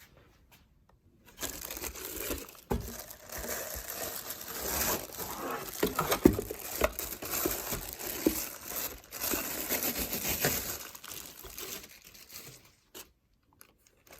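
Packaging crinkling and tearing as it is unwrapped by hand, with many small clicks and knocks mixed in. It starts about a second in and dies away near the end.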